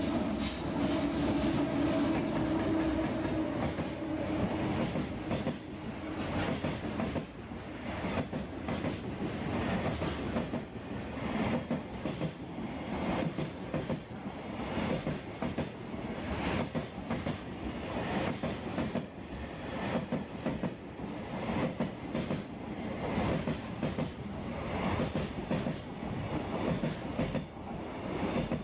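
Electric freight train passing close: a steady hum from the locomotive for the first several seconds, then the wagons' wheels clattering over the rail joints in a long, repeated run.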